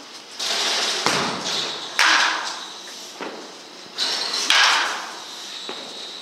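Baseball bat striking balls during indoor batting practice: sharp cracks about a second in, at two seconds and about four and a half seconds in, each trailing off into the room's echo.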